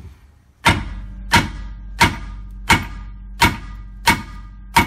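A three-pound sledgehammer striking a rusted driveshaft flange at the pinion flange seven times, about one and a half blows a second, each strike a sharp metallic clang with the driveshaft ringing on between blows. These are light blows to break the rust bond between the driveshaft flange and the pinion flange.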